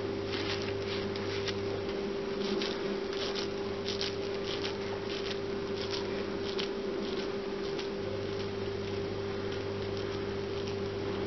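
Soft, irregular squishing and patting of greased hands pressing and rolling moist grated-carrot laddu mixture into balls, over a steady low hum.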